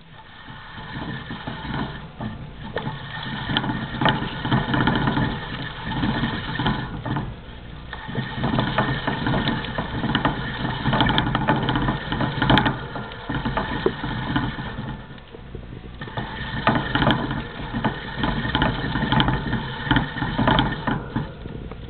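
Plastic exercise wheel spinning and rattling under a running pet mouse, a steady clattering whir full of small clicks that swells and eases every few seconds as the mouse speeds up and slows.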